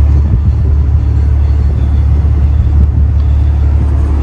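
Steady, loud low rumble of a ship's engines and machinery heard on deck.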